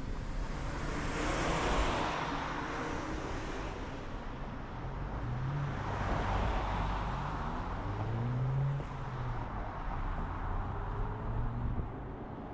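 Car driving on the road: steady tyre and wind noise, swelling as other vehicles pass about two seconds in and again from about six to nine seconds, with a low engine hum that rises in pitch in the middle.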